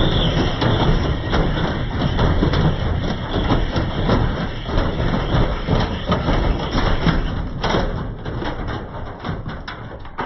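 Beko washing machine spinning hard with a concrete weight inside its drum, badly off-balance: a loud, continuous rumble of rapid banging and knocking as the machine shakes and walks across the floor. The noise fades away over the last couple of seconds.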